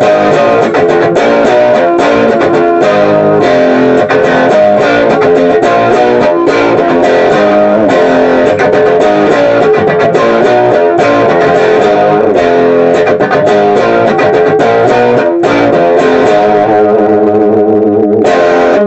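Loud intro music led by guitar, running steadily throughout.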